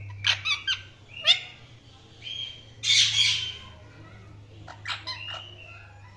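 Indian ringneck parakeet calling: a quick run of sharp chirps in the first second and a half, a longer harsh squawk about three seconds in (the loudest call), then a few more short chirps about five seconds in.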